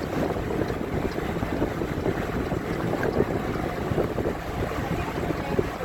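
Small ferry boat's engine running steadily under way, a low hum under wind buffeting the microphone.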